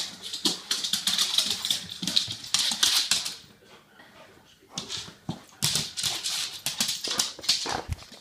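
Soft Coated Wheaten Terrier in an excited greeting: a rapid jumble of scrabbling, snuffling and small yips, with a lull of about a second midway.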